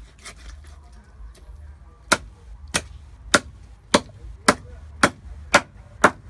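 Meat cleaver chopping through a plucked Muscovy duck carcass on a round wooden chopping block: sharp, evenly spaced blows, about three every two seconds, starting about two seconds in.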